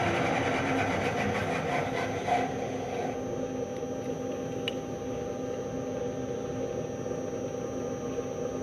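Milling machine running as an end mill finishes a light pass around a driveshaft yoke's outside diameter. The cutting noise dies away about three seconds in, leaving a steady machine hum with one small click a couple of seconds later.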